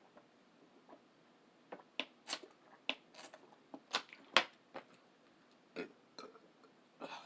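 Close-miked eating sounds: a person chewing, with an irregular run of sharp wet mouth clicks and smacks starting about two seconds in.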